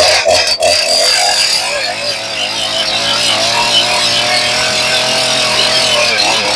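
Holzfforma G288 90cc-class two-stroke chainsaw held at full throttle in a steady cut through hardwood, its pitch wavering slightly near the end. The saw is new, still running in and untuned, set rich.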